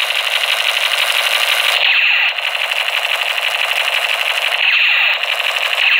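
Battery-powered toy machine gun's electronic firing sound: a rapid, buzzy machine-gun rattle from its small speaker, playing as a loop that restarts about every three seconds.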